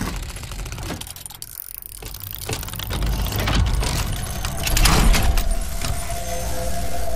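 Sound effects for an animated gear-and-logo intro: metallic clinks and whooshing noise that swell to a loud hit about five seconds in, followed by a steady held tone.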